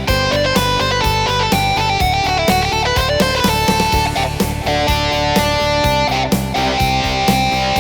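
Yamaha PSR-SX900 arranger keyboard playing guitar voices, strummed and plucked electric guitar tones with a melody line over a steady bass and drum accompaniment.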